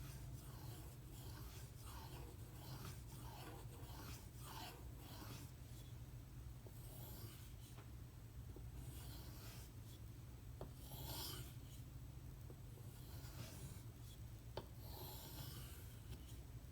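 Steel knife blade drawn across a whetstone. Quick rasping strokes come at a steady rhythm for the first few seconds, then sparser strokes with a couple of light clicks. A steady low hum runs underneath.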